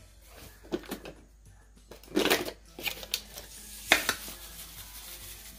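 Kitchen handling sounds: a scattered series of clicks, knocks and a short scrape as dishes and ingredients are set out on a counter, the loudest a sharp knock about four seconds in.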